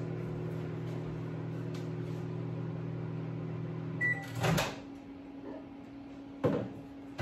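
Microwave oven running with a steady hum, heating melt-and-pour soap base. About four seconds in it gives one short beep as the cycle ends, the hum stops, and the door clunks open; another knock follows near the end.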